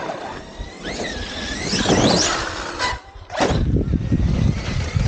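RC monster truck's brushless electric motor whining, its pitch gliding up and down with the throttle. After about three seconds a loud, even rushing noise takes over.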